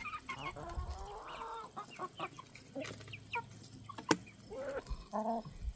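Chickens clucking while they feed on scattered superworms. A longer call comes about half a second in and another near the end, among scattered short clicks.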